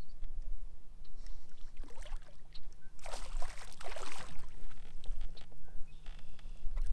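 Hooked largemouth bass thrashing and splashing at the surface beside a kayak, loudest about three to four seconds in.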